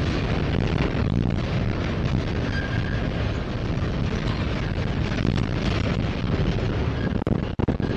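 Freight cars rolling past close by: a steady heavy rumble and clatter of steel wheels on the rails, with a brief faint squeal about two and a half seconds in.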